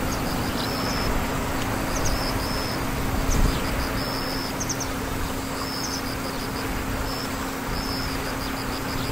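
Outdoor ambience: a steady rushing noise with a low hum underneath, and short high-pitched chirps repeating every second or so.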